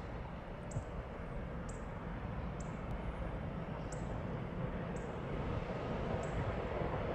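Distant approaching freight train hauled by an E6ACTd electric locomotive: a low, even rumble growing slowly louder. A faint short high chirp repeats about once a second.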